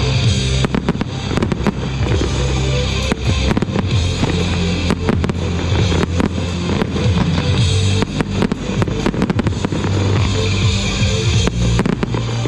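Aerial fireworks shells bursting in quick clusters of sharp bangs, over loud music with a steady bass line.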